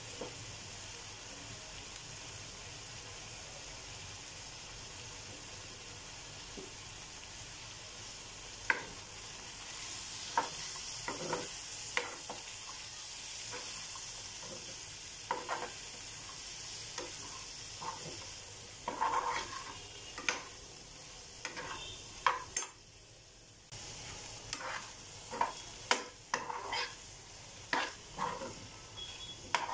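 Potato and pea curry sizzling in a frying pan while a metal spoon stirs it, scraping and clacking against the pan. The stirring strokes start about a third of the way in and come more often in the second half.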